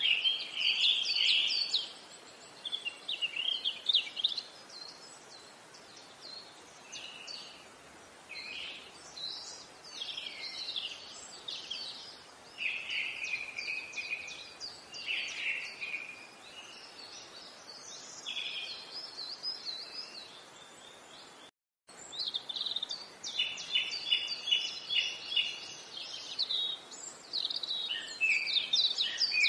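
Several small birds singing and chirping in short, overlapping phrases and trills over a faint steady hiss. The sound cuts out completely for a moment about two-thirds of the way through, then the birdsong resumes.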